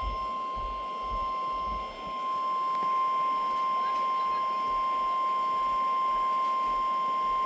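NOAA Weather Radio 1050 Hz warning alarm tone from a weather radio receiver: one steady, unbroken high-pitched beep, sounded as the station's weekly test of the warning alarm.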